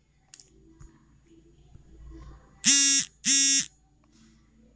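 Two short, loud electronic buzzes in quick succession, each a flat, steady tone lasting under half a second, a little past halfway through. A faint click comes just before, about a third of a second in.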